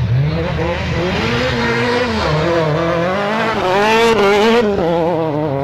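Rally car engine revving hard as the car comes up and passes close by on a gravel stage. Its pitch climbs and drops again and again with throttle and gear changes, and it is loudest about four seconds in.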